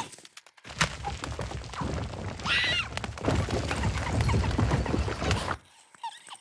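Cartoon sound effects: a sharp knock about a second in, then a busy run of thuds and knocks with a short squawking cry, dropping away about five and a half seconds in.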